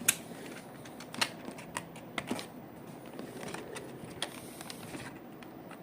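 Scattered light clicks and taps of a small plastic toy train model and its packaging being handled, the sharpest just after the start and about a second in.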